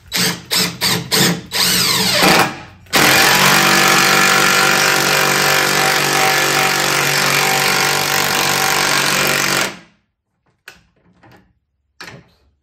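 Cordless impact driver driving a lag bolt into wood. A few short trigger bursts come in the first three seconds, then about seven seconds of continuous rapid hammering as the impact mechanism works under load, before it stops abruptly.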